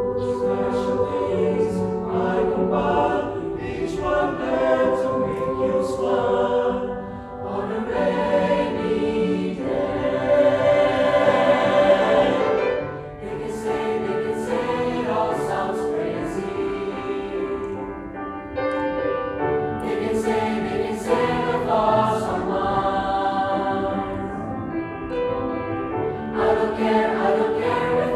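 A school choir singing in several parts, swelling loudest about a third of the way through and easing back briefly twice.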